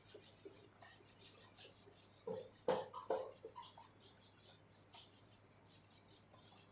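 Cloth duster wiping a whiteboard: a run of quick, faint rubbing strokes, with a few louder knocks or scrapes about two to three seconds in.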